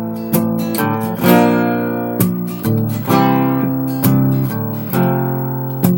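Acoustic guitar strumming chords, each strum striking sharply and then ringing out, about one to two strums a second.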